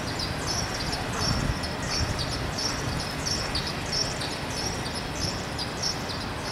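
Birds chirping, short high calls about twice a second, over a low steady background rumble.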